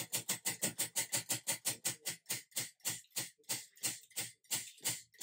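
Spinning prize wheel, its pegs clicking against the pointer in a rapid run of ticks that slows steadily from about eight a second to about three a second as the wheel coasts down.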